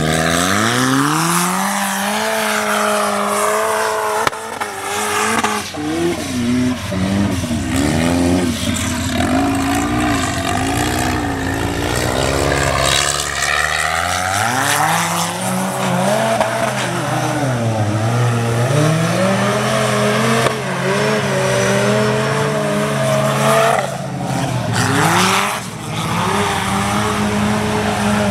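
Formula Offroad buggy's engine revving hard while it climbs a steep dirt slope with its paddle tyres spinning. The revs rise and fall over and over as the throttle is worked.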